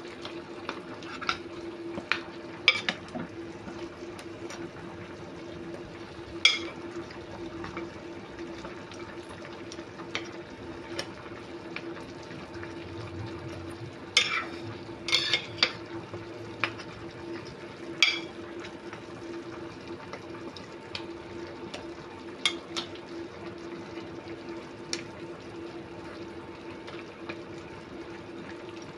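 Pork knuckles simmering in sauce in a pot, bubbling steadily under a low steady hum, while a utensil stirs and knocks against the pot now and then, in a quick cluster of clinks about halfway through.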